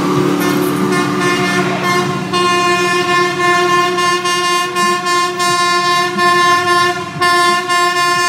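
The diesel engine of a rail track maintenance machine runs as it passes, then an approaching hi-rail work truck on the track sounds its horn for the grade crossing, several long blasts with brief breaks between them.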